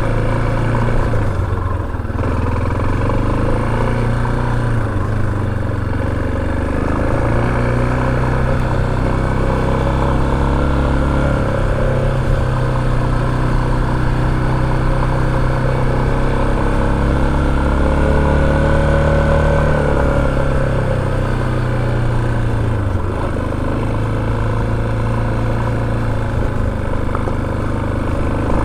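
Motorcycle engine running while riding, its pitch rising and falling repeatedly with the throttle.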